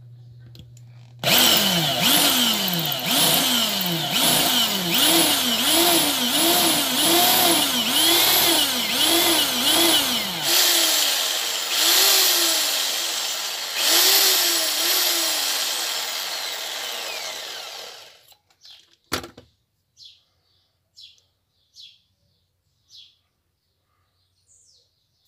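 Red corded electric drill with a 2 mm bit drilling through a small metal plate held in pliers; the motor speed rises and falls repeatedly, about once a second, as the trigger is worked. The drill stops about 18 seconds in, followed by a sharp click and a few light metal clinks as the piece is handled.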